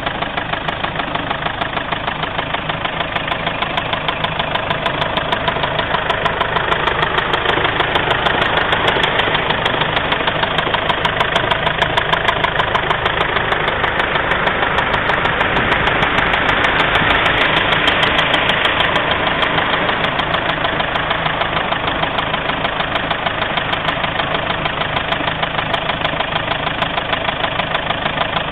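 Mazda 6 engine running with a rumbling noise, a fast, even pulsing over a steady drone, growing a little louder in the middle and easing back toward the end. The cause of the rumble is unknown to the owner.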